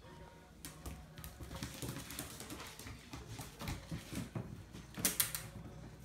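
A wet Cavalier King Charles spaniel's claws clicking and scrabbling on a tile floor as it runs about, with a louder flurry about five seconds in.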